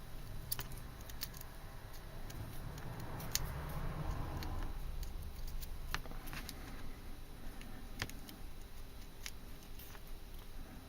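Irregular small metal clicks and scrapes from hands working a pocket clip onto an aluminium flashlight body.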